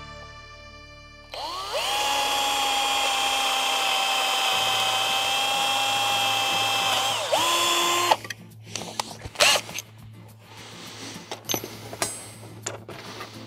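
Cordless drill spinning up and running at a steady speed for about six seconds, then a short second run at a higher speed, followed by a few knocks and clicks.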